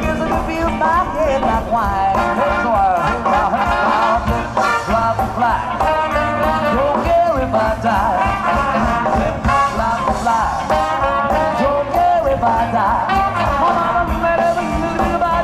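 Live jump-blues band playing an instrumental break over a steady beat, with horns, electric guitar, bass and drums, and a harmonica taking the lead.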